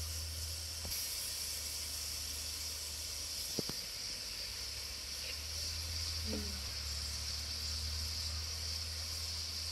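Sliced onions frying in hot oil in a steel karahi, a steady sizzle, with one light click about three and a half seconds in.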